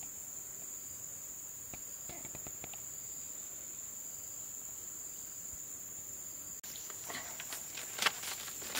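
Insects chirring steadily in one thin, high, unbroken tone. Near the end the sound breaks off abruptly and is followed by a scatter of light taps and rustles.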